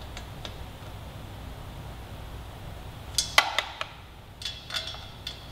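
Ratchet and socket working steel exhaust header flange nuts: a quick run of metal clicks and clinks about three seconds in, and a few more a second later.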